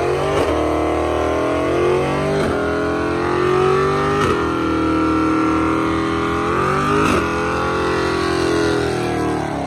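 Dodge Charger's engine held at high revs through a burnout, its rear tyre spinning on the asphalt. The revs rise and fall several times.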